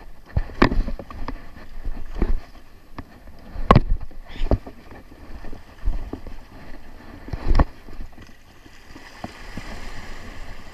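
Irregular thumps and knocks every second or two, as of footsteps and the camera jolting while clambering over breakwater boulders, over small waves lapping against the rocks.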